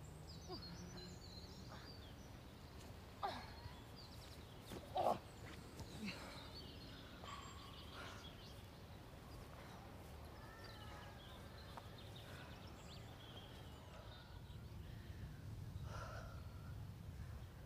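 Faint outdoor ambience: scattered bird chirps and calls over a low steady background rumble, with two brief louder knocks about three and five seconds in.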